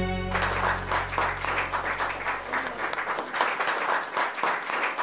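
Music breaks off just after the start and an audience applauds, many hands clapping steadily, while a low bass note dies away over the first few seconds.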